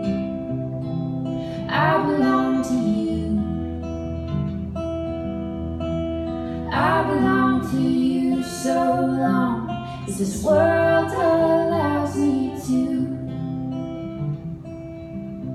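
Live acoustic folk song: a steel-string acoustic guitar played under two female voices singing, with sung phrases coming in about two, seven and ten seconds in.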